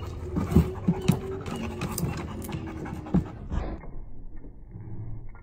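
Dog panting, with a few loud, sharp thumps in the first three seconds; about three and a half seconds in, the sound turns quieter and duller.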